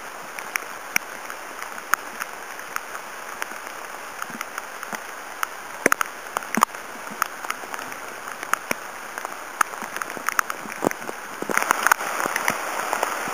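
Rain falling, with many separate sharp drop hits over a steady hiss; it grows louder and denser near the end.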